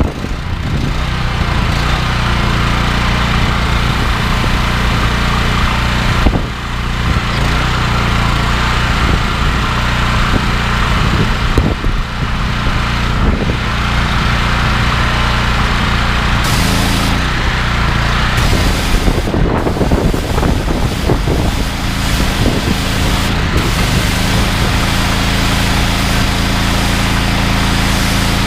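Honda GX390 single-cylinder petrol engine running steadily on a belt-driven pressure washer, with a steady hiss over it. The engine note shifts a few times in the second half.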